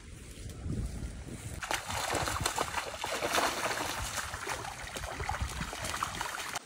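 Pond water splashing and sloshing as a man wades and hauls a fishing net through it, busy irregular splashing that picks up about a second and a half in.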